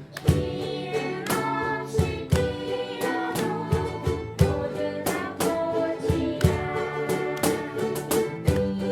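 Live ukulele ensemble strumming chords in a steady rhythm, with a held melody line carried over the strums.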